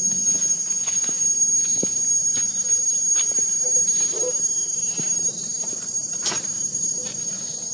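Steady high-pitched drone of insects in the orchard, with a few faint clicks scattered through it.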